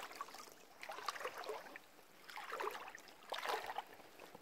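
Water sloshing and splashing in a shallow river under wading footsteps, coming in irregular surges about once a second.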